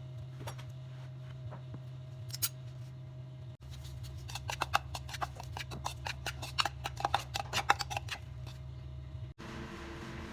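Quick, irregular clicks and taps, densest from about four to nine seconds in, over a steady low hum; the sound cuts off abruptly twice.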